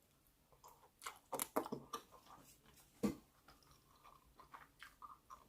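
Close-up mouth sounds of a person chewing food: soft, wet clicks and smacks, clustered about a second in, with one sharper click about three seconds in and fainter ones after.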